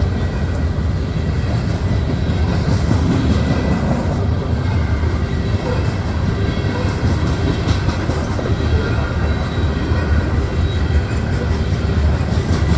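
Loaded coal hopper cars of a long freight train rolling steadily past: a continuous low rumble with scattered clicks and clatter from the wheels.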